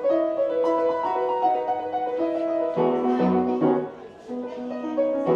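Upright piano played: a melody of held notes over chords.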